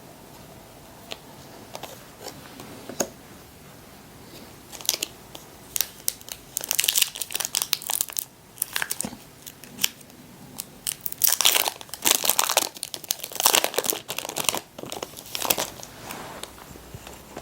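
Foil booster-pack wrapper of Disney Lorcana trading cards being torn open and crinkled, in irregular bursts of crackling rustle that are loudest in the second half.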